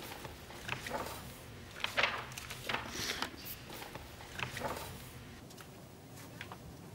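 Books being handled: irregular soft knocks and rustles as books are moved and set down, the loudest about two seconds in.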